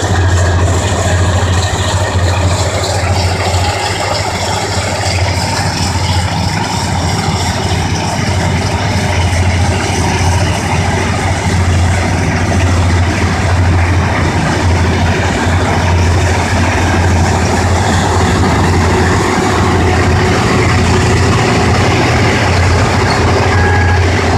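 AGRI-70 rice combine harvester running steadily at work: a loud, constant engine drone with the broad noise of its machinery.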